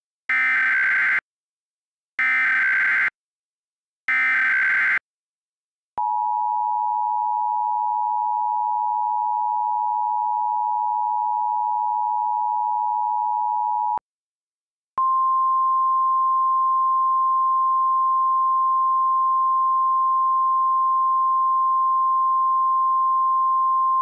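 Emergency alert broadcast tones. First come three short screeching SAME data bursts, about two seconds apart. Then the two-tone attention signal holds steady for about eight seconds, and after a one-second gap a single, slightly higher steady tone follows.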